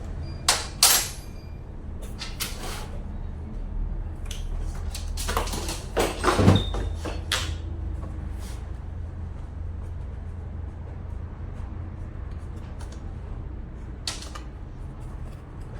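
Scattered sharp knocks and clanks: two close together near the start, a cluster in the middle and one more near the end, over a steady low hum.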